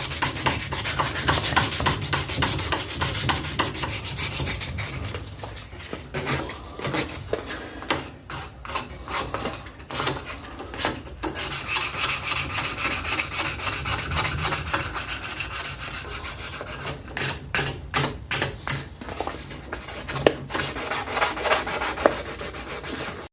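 Sandpaper scrubbing the rusty metal bar of an old bar clamp by hand, in quick back-and-forth strokes. It eases off for a moment a few seconds in, then carries on.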